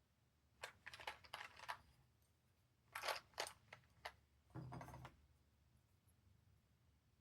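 Keys being typed on a NuPhy Node 75 low-profile mechanical keyboard, in four short bursts of rapid taps with pauses between them, stopping about five seconds in.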